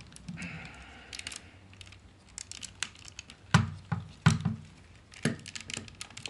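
Plastic parts and joints of a Takara Masterpiece MP-36 Megatron figure clicking and knocking as they are handled and forced, with a short scraping rub near the start. There are scattered small clicks throughout and a few louder knocks between about three and a half and five and a half seconds in.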